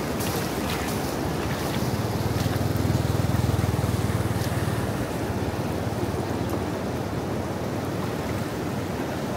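Floodwater rushing over a dam as a steady wash of noise, with a low rumble that swells about two seconds in and fades again a few seconds later.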